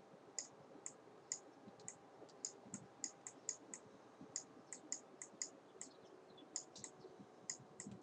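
Faint, irregular light clicks, about three a second: the tip of a stylus tapping on a pen tablet as it handwrites.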